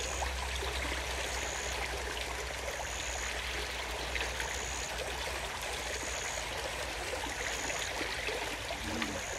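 River water running steadily, an even rushing wash. Over it, a high, thin chirp repeats about every second and a quarter.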